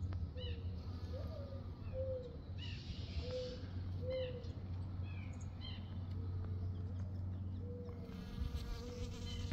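Honeybee buzzing in flight around lavender flowers, its drone coming and going as it moves. Short high chirps repeat in the background.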